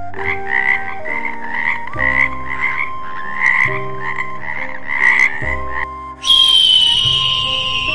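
A toad calling in a quick series of short croaks, which stops about six seconds in. Then a bird of prey gives one loud, high, long cry that falls slowly in pitch. Background music with sustained notes runs underneath.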